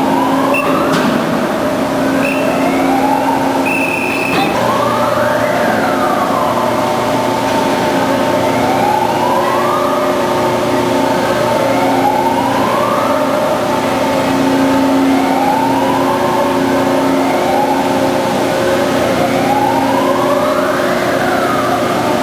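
Band saw running with a steady hum, and a whine that rises in pitch again and again every few seconds.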